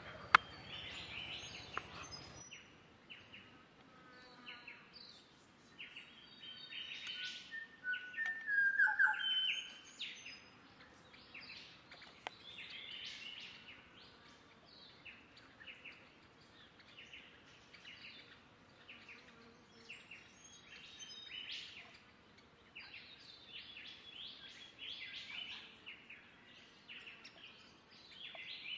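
Wild birds chirping with many short, high calls, faint, with one louder call about nine seconds in. A single sharp knock comes just after the start.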